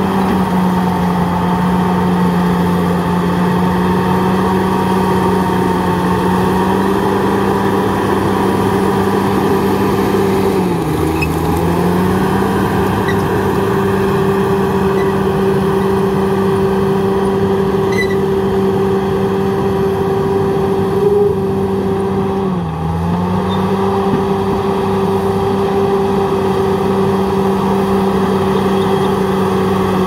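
Crawler bulldozer's diesel engine running steadily at working speed while pushing earth, its note dipping briefly twice as the engine pulls down under the load and then picks back up.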